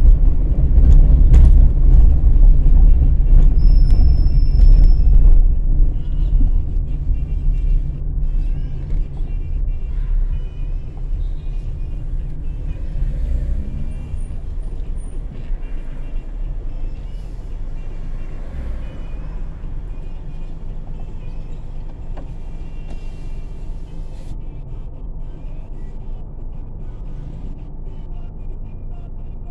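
Low road and engine rumble of a car being driven. It is loudest for about the first six seconds, then dies down steadily as the car slows and sits in traffic.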